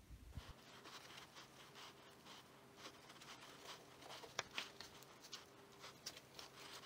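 Faint, irregular rubbing strokes of a cleaning cloth wiped along a car's painted sill, degreasing it before a side skirt is bonded on, over a faint steady hum.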